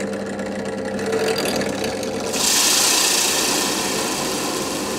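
Drill press motor running with a steady hum while a hinge boring bit cuts the cup hole for a euro hinge into an MDF door. About two seconds in, the bit bites into the MDF and adds a loud hissing cut, which eases off again about a second and a half later.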